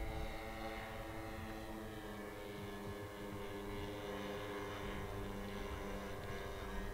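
Zenoah ZG two-stroke petrol engines of a large scale model Ford Trimotor droning steadily in flight, their several close pitches blending into one even hum.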